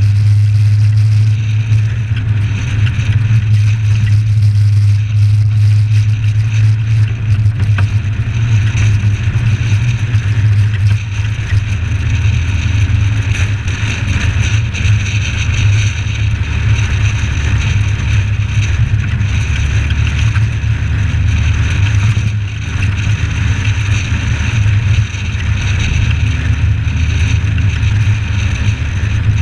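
Suzuki Samurai driving at a steady cruise: a constant low engine and road drone with little change. It is muffled through the camera's sealed waterproof case.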